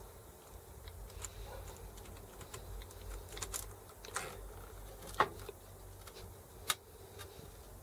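Small metal clicks and taps from the parts of a Sturmey-Archer S5C internal gear hub as they are handled and slid off the axle, with two sharper clicks in the second half.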